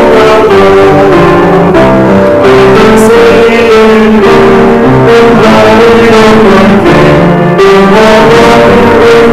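A hymn sung by a few voices with instrumental accompaniment, in held notes that change about every half second.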